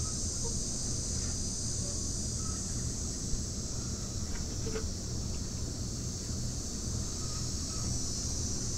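A steady, high insect drone, with a constant low rumble underneath and a few faint short chirps.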